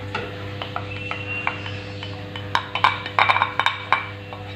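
A spatula scraping and tapping mashed dragon fruit out of a glass bowl into a saucepan: a run of light clicks and knocks, thickest about two to four seconds in, over a steady hum.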